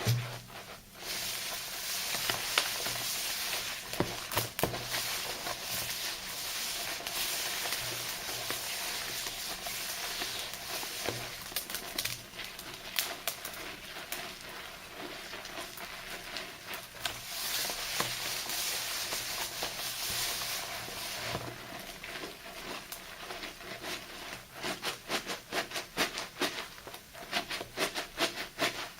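Thick soap lather and sea salt being worked into a paste by hand, a steady wet, crackly hiss of stirring and scrubbing. Near the end it turns into a quick run of clicks.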